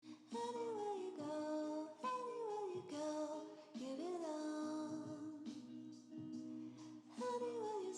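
Intro music with a woman singing in short phrases that fall in pitch at their ends, over a held lower tone.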